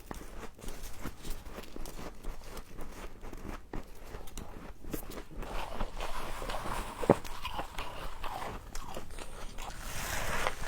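Close-up biting and chewing of humidifier frost: a dense run of crunches and crackles, with one sharp crack about seven seconds in.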